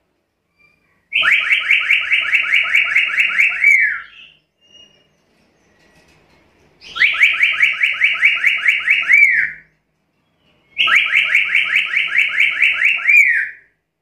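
Black-capped lory (Lorius lory) calling in three bouts of rapid repeated notes, about five a second. Each bout lasts about two and a half seconds and ends in a slurred, falling note.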